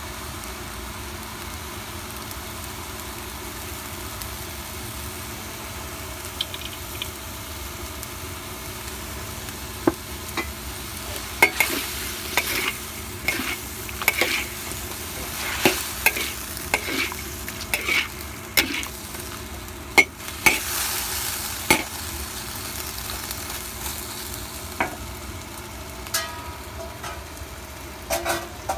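Food frying in a pan with a steady sizzle, while a utensil stirs it, scraping and knocking against the pan. The knocks come thick and fast from about a third of the way in to about three quarters, with a few more near the end.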